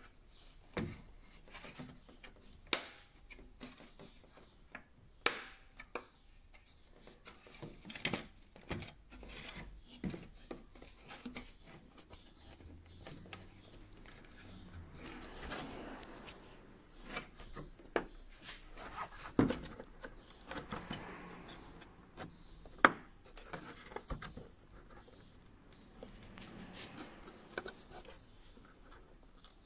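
Hard plastic clicks, knocks and rubbing as hands work the BMW F30's tail-light housing and bulb carrier: a dozen or so scattered sharp clicks, with stretches of scraping a little past the middle.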